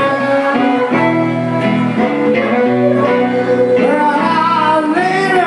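Piedmont blues on guitar and harmonica: the guitar picks a steady pattern under held harmonica notes, and near the end the harmonica bends its notes up and down.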